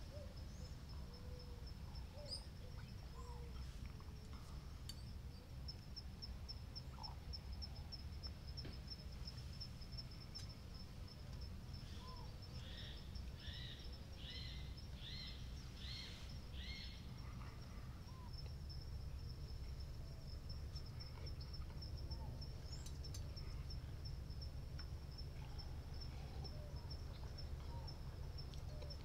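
Woodland ambience: an insect keeps up a steady, rapidly pulsing high-pitched trill while birds chirp here and there, one bird repeating the same call about six times near the middle. A low steady rumble lies underneath.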